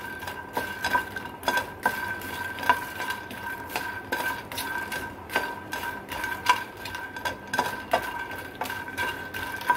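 Spatula stirring puffed lotus seeds (makhana) in a dry pan as they roast without oil until crunchy: irregular scraping and tapping strokes about once or twice a second. A faint steady high whine runs underneath.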